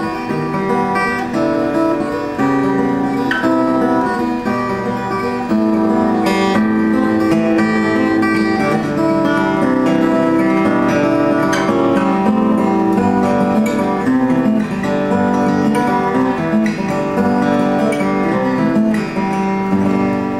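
1932 Martin OM-18 acoustic guitar played with strummed chords and ringing single notes, with the reverberation of an echoey room.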